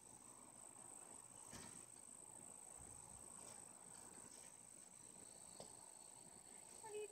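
Near silence with a faint, steady, high-pitched insect drone, a couple of soft knocks, and a short animal call just before the end.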